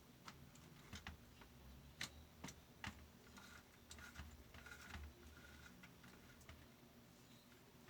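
Near silence: room tone with a low hum and a dozen or so faint, irregular clicks and taps.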